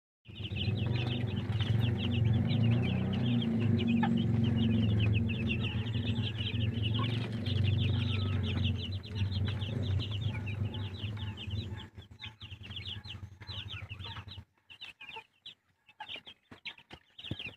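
A brood of broiler chicks peeping constantly, many short high chirps overlapping. Under them runs a loud low rumble that weakens about two-thirds of the way through and stops near the end, after which the peeping comes in choppier bursts.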